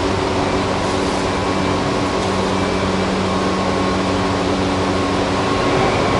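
Tobu 8000 series electric train running at a steady speed, heard from inside the motor car: wheel-on-rail rumble with a steady, unchanging hum from the traction motors and their cardan-drive gearing.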